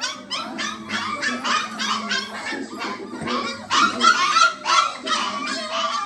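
Catahoula bulldog puppies yipping and whining, a steady run of short high calls several times a second with no break.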